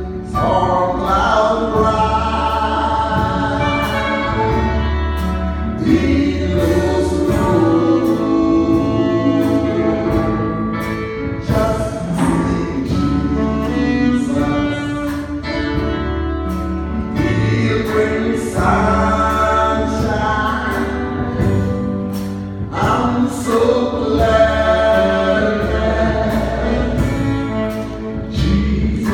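Live gospel music: a choir singing long held notes over keyboard, bass and drums, with steady cymbal hits keeping the beat.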